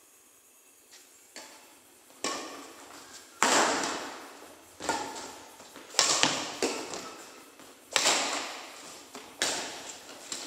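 A badminton rally: rackets striking a shuttlecock back and forth, a sharp smack about every second or so starting about a second in, each hit trailing off in echo.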